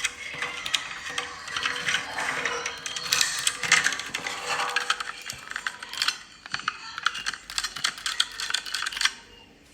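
Rapid small plastic and metal clicks and rattles as a new 9-volt battery is fitted and pressed onto a smoke detector's snap connector, dying down near the end.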